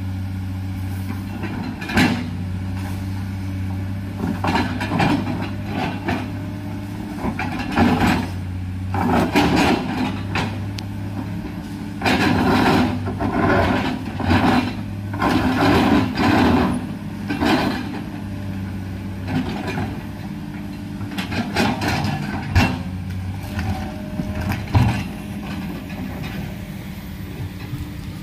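Komatsu hydraulic excavator's diesel engine running steadily, with repeated clanks and rough scraping as its steel bucket strikes and grinds against rock. The knocks come in clusters through the middle, the loudest about two, eight and twenty-five seconds in.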